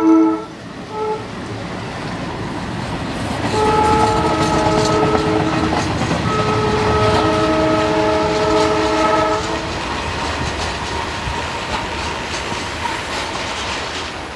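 ALCO diesel locomotive sounding its horn: a blast that ends just after the start, a short toot about a second in, then two long blasts in the middle. Under them runs the steady rumble and wheel clatter of the passing train.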